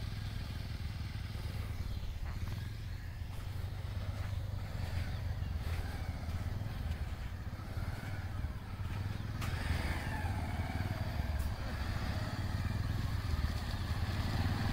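Motorcycle engine running with a steady low hum, a little louder from about ten seconds in.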